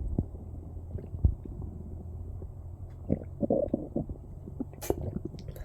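Stomach gurgling from a belly filled with a large amount of water: irregular small pops and bubbly gurgles over a low rumble, with a louder gurgle about three seconds in and a sharp pop near five seconds.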